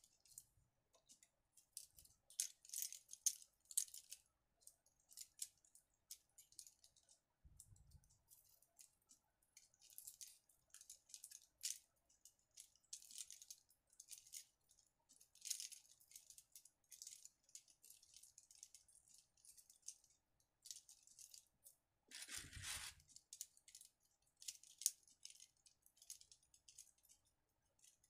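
Handmade acrylic lily flowers on wire stems rustling and clicking as they are handled and gathered into a bouquet: a string of faint, crisp rustles, with one louder knock about three quarters of the way through.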